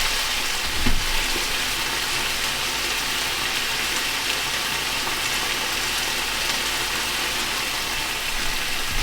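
Diced chicken frying in a hot pan with onion and green curry paste, a steady sizzling hiss, with a soft knock about a second in.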